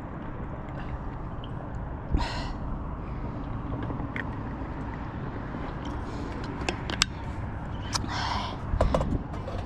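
Steady low wind and road rumble on a bicycle-mounted or handheld microphone while riding along a busy highway, with scattered sharp clicks and two brief higher sounds, about two seconds in and near eight seconds in.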